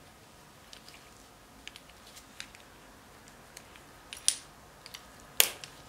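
Small metallic clicks and taps of needle-nose pliers working a bent paper-clip wire spring into a cast clicker hub, with two sharper, louder clicks a little after four and five seconds in.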